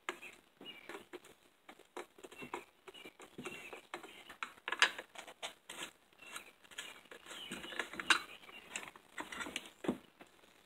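Hand tools working on a small engine's metal parts as its recoil starter and friction drive clutch are taken off: irregular light metallic clicks, taps and scrapes, with a few sharper clicks about five, eight and ten seconds in.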